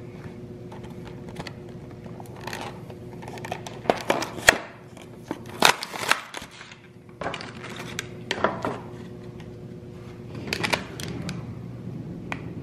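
Plastic blister packaging and cardboard card of an action figure being handled and pried apart, giving irregular crackles and sharp snaps in several clusters.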